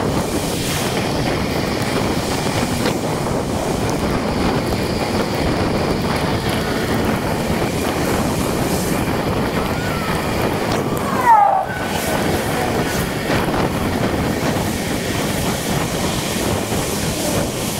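Steady rushing noise of a bicycle ride in the rain: wind buffeting the microphone, mixed with passing traffic and tyres on a wet road. A short sliding squeal cuts through about eleven seconds in.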